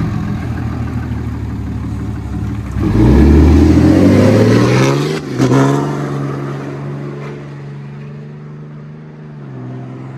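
2018 Ram 2500's 6.7-litre Cummins inline-six turbodiesel, with everything deleted and straight pipe from the turbo back, idling, then revving hard about three seconds in as the truck pulls away. The pitch dips briefly near five seconds and climbs again, then the engine fades steadily as the truck drives off.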